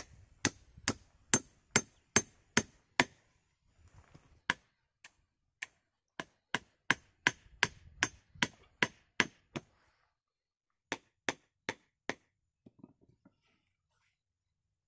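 Hatchet chopping at a small upright stick braced on a log: quick, sharp wooden chops about two to three a second. They come in a few runs with short pauses and stop near the end.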